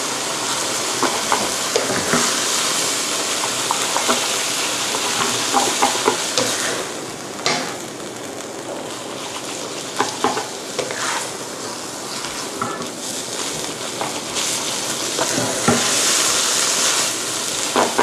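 Rice vermicelli, shrimp and water mimosa sizzling in a hot wok as a spatula tosses and scrapes through them, with frequent light clicks of the spatula against the pan. The sizzle dies down about seven seconds in and picks up again near the end.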